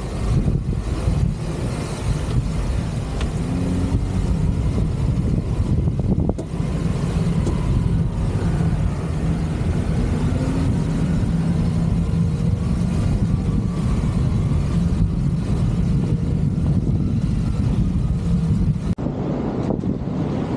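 Jeep Wrangler JK driving off-road, with its engine running steadily under a heavy rumble of tyre and road noise. There is a brief dip near the end.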